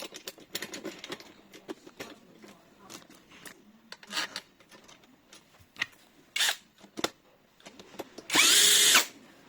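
Small clicks and knocks of lock parts being handled and fitted. Near the end comes one short burst from a cordless power drill-driver, under a second long, its motor pitch rising and then falling.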